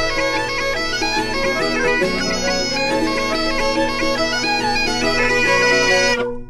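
Bagpipe music: a steady drone under a chanter melody, stopping near the end.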